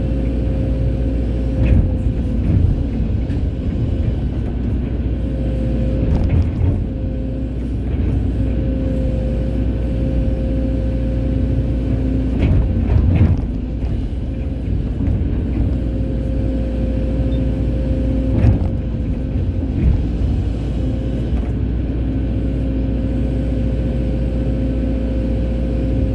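Hydraulic excavator working, its diesel engine running steadily with a constant whine over the drone, and a handful of short knocks and clunks from the bucket and boom spread through it.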